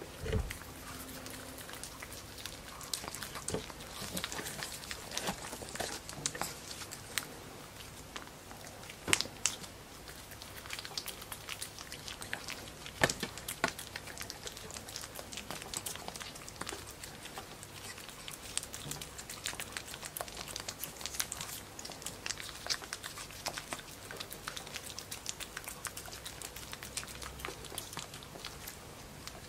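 Pekingese puppy licking and smacking at a Churu lickable treat squeezed from a tube: a steady run of small wet lapping and smacking clicks, a few of them louder.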